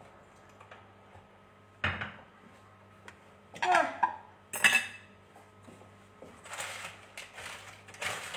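Kitchen dishes and utensils clattering: a knock about two seconds in, a clatter with a brief metallic ring and a sharp clink around the middle, then a few seconds of scraping and rustling near the end, over a steady low hum.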